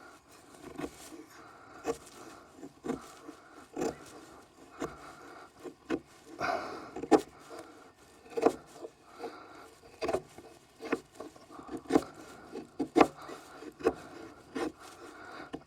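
Heavy fixed-blade knife chopping into a split of firewood, a sharp knock about once a second with the blade scraping in the wood between strikes.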